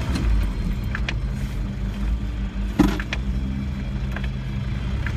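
Land Rover engine and drivetrain running steadily inside the cabin while driving slowly along a rough lane, with a few short knocks and rattles from the body, the loudest about three seconds in.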